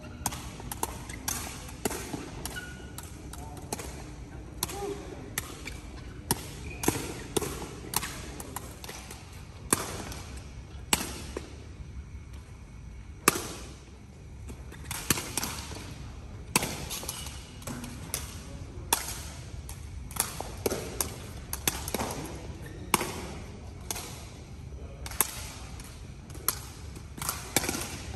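Sepak takraw balls being kicked and bouncing off the floor and rebound nets again and again: sharp smacks at irregular intervals, about one to two a second.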